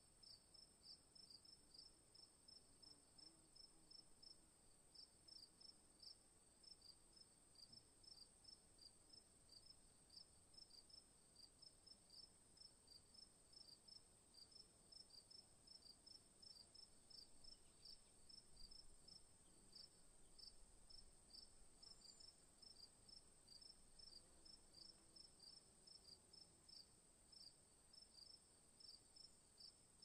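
Crickets chirping faintly: short, high chirps repeated evenly a few times a second, with a steady high-pitched trill running alongside.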